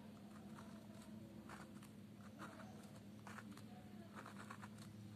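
Pen scratching a series of short hatching strokes across paper, faint, roughly two strokes a second, over a low steady hum.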